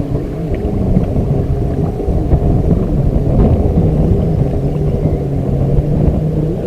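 Strong wind buffeting the microphone on a small fishing boat: a dense low rumble, with a low droning tone underneath that steps up and down in pitch.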